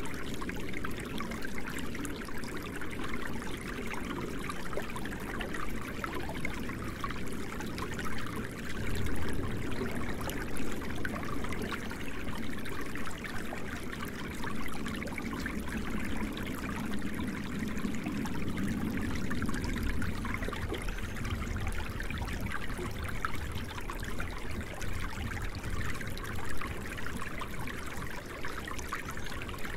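Steady running water, like a babbling stream, flowing evenly with no music and no break.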